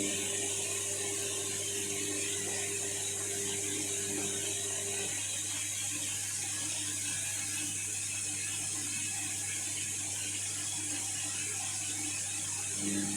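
Indesit washing machine running through its rinse stage: a steady mechanical whirring with a low hum, whose steady tones stop about five seconds in and start again near the end.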